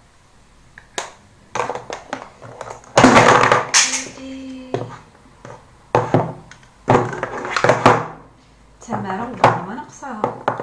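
A woman speaking in short phrases with pauses, close to the microphone in a small room.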